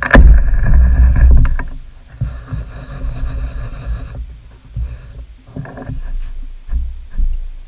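Old belt-driven metal lathe at work on a steel part: a sharp metallic clank at the start, then the machine running with a whine that comes and goes and scattered knocks.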